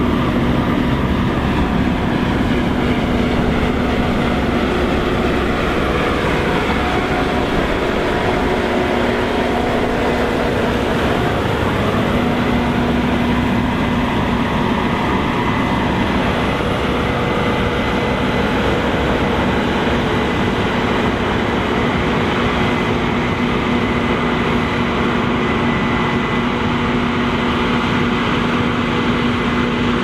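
Case IH 8240 combine harvester running under load while harvesting wheat: a steady, dense machine drone of engine and threshing gear with a constant hum through it.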